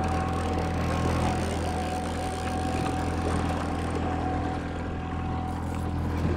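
Small outboard kicker motor running steadily at trolling speed, a low hum with a thin whine on top, under wind and water noise.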